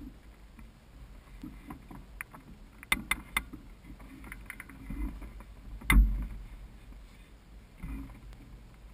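Low, uneven rumble of wind buffeting a microphone mounted on a hang glider, with scattered clicks and knocks from the glider's frame and the pilot's harness as he shifts on the launch cart: a quick run of sharp clicks about three seconds in and a heavier thump about six seconds in.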